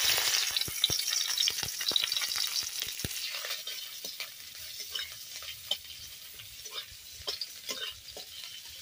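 Sliced onions sizzling in hot oil in a metal kadai, loudest at first and easing into a steadier fry after about three seconds. A metal spatula scrapes and taps the pan again and again as the onions are stirred.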